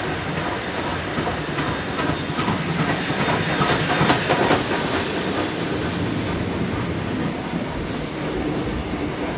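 Queensland Rail BB18¼ class steam locomotive passing close by along the platform, loudest about four seconds in as it goes by, followed by its carriages rolling past.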